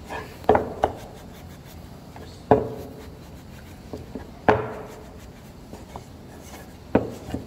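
A cloth rubbing oil finish into a small wooden box, with about five hollow wooden knocks as the box is turned and set back down on the plywood bench. The two loudest knocks come about two and a half and four and a half seconds in.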